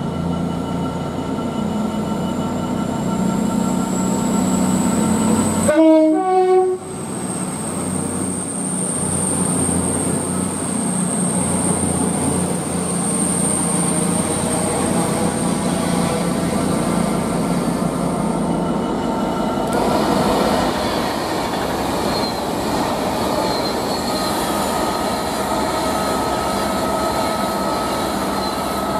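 A CrossCountry Voyager diesel-electric multiple unit runs along the platform with a steady engine hum. It gives a short, loud two-tone horn blast about six seconds in, then passes with a thin high whine. Near the end the sound shifts as a Freightliner Class 66 diesel-electric freight locomotive comes by on the next track.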